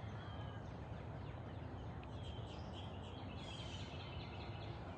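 Faint outdoor ambience: a steady low background noise with distant small birds chirping a few times and a brief trill about three and a half seconds in.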